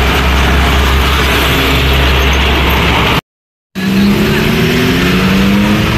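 Busy road traffic: the deep, steady engine rumble of a heavy diesel truck and a bus pulling away. The sound cuts out briefly about three seconds in, then an engine accelerates with a rising note as a motorbike and cars pass.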